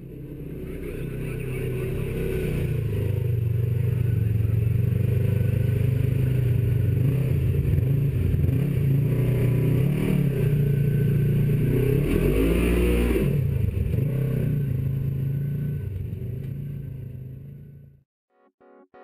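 Off-road vehicle's engine running as it crawls over rock, heard from a camera mounted on the vehicle, with clattering. The revs swing up and down about two-thirds of the way through. The sound fades in over the first couple of seconds and fades out about a second before the end.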